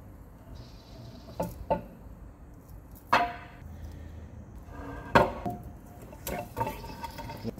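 Steel parts of a milling machine's ball screw assembly clanking and knocking against the machine as the screw and ball nut are worked loose and slid out, about seven sharp metallic knocks, several ringing briefly, the loudest about five seconds in.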